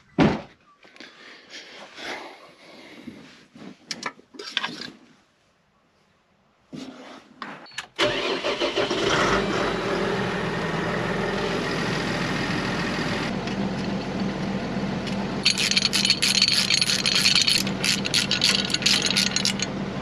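A tractor's diesel engine running steadily, heard from inside the cab, setting in about eight seconds in after a few seconds of quieter, broken sounds. A higher hissing rattle joins it for a few seconds near the end.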